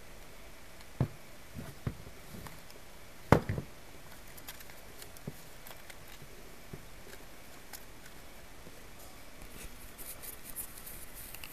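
Handling noises of a Bosch PHO 3100 electric hand planer, its motor not running: a few sharp knocks and clicks as it is moved about and set down on the wooden bench, the loudest about three seconds in, then faint clicks and rustling near the end.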